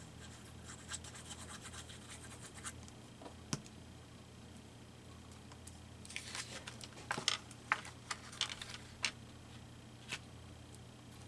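Paper scratching and rubbing as glue is spread on a cut-out collage piece and it is pressed down. It comes in two spells of quick scratchy strokes, with a sharp tap about three and a half seconds in and another near the end.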